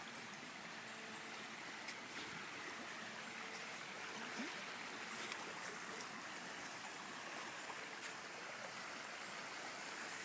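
Floodwater in a swollen creek rushing steadily, the creek still running about five feet above its normal level.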